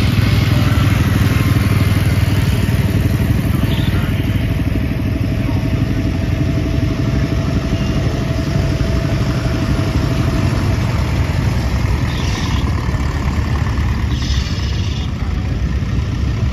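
Vintage tractor engines running steadily as tractors drive past one after another: a small white garden tractor, a grey Ferguson with a front loader, then a blue Leyland 154.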